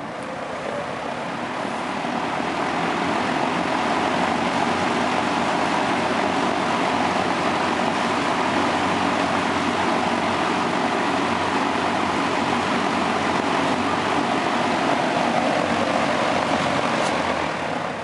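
1960s Galaxy box fan running on high speed, its metal blades pushing a steady rush of air. The sound swells over the first few seconds, holds even, and dies away near the end.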